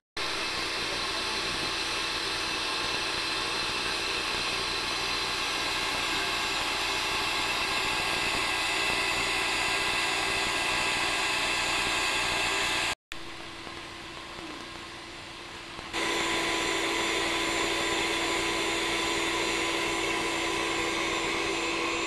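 Steady rush of splashing water from a swimming pool's rock fountains and spa, with an even hum running through it. The sound drops to a quieter rush about halfway through, then comes back at full strength a few seconds later.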